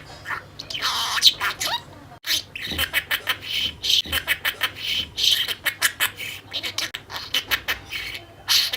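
Budgerigar chattering: a fast, continuous run of chirps, clicks and warbling, with a brief pause about two seconds in.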